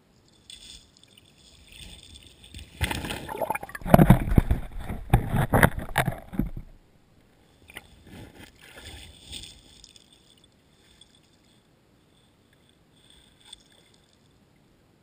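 Coho salmon thrashing in shallow river water close to an underwater GoPro: about four seconds of muffled churning splashes and knocks, loudest about four seconds in, then fainter sloshing.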